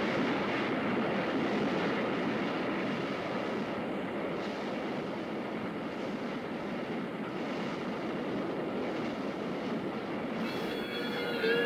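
HO scale model freight cars rolling past on the track: a steady rolling noise of small metal wheels on rail that slowly grows quieter.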